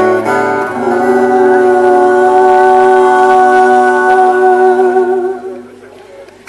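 A man singing with a strummed acoustic guitar. Just under a second in, the strumming stops and he holds one long note over a ringing chord, which dies away near the end.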